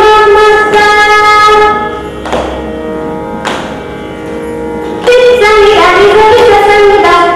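A girl's voice singing Carnatic classical music in long, ornamented held notes over a steady drone. Between about two and five seconds in, the voice rests and only the drone is heard, with two brief strokes.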